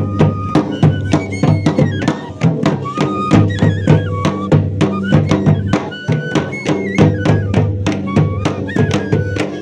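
Several small flutes played together in a stepping folk melody over a fast, steady drumbeat: traditional Pangi folk music.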